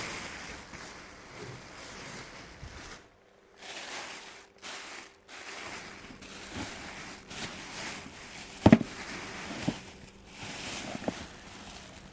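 Rustling and crinkling of a dress and its wrapping being handled, in uneven stretches with short pauses, and a sharp knock a little under nine seconds in followed by two smaller ones.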